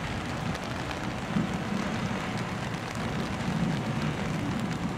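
Steady rain falling, with the low rumble of the approaching freight train's GE ET44AH diesel locomotives in the distance, swelling now and then.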